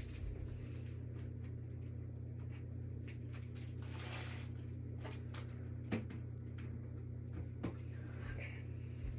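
Steady low hum of a running ceiling fan in a small room, with a few faint short knocks about six, seven and a half and nine seconds in.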